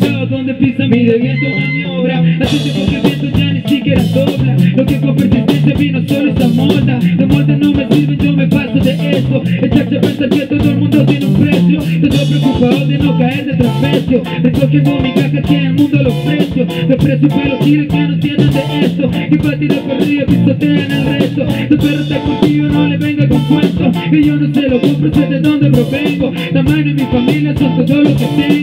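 Live band playing an instrumental dub passage on electric guitar, bass guitar and drum kit, with the bass stepping through a repeating pattern. The cymbals come in about two and a half seconds in.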